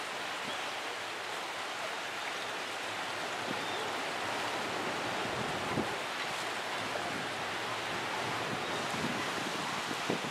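Steady rush of wind over a choppy sea, with wind buffeting the microphone and a couple of brief bumps, about six seconds in and near the end.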